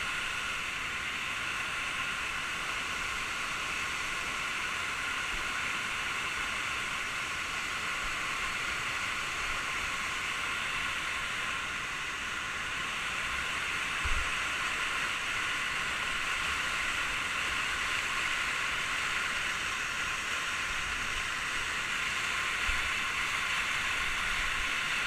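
Waterfall rushing steadily, heard as an even, hissy noise, with a soft bump about 14 seconds in.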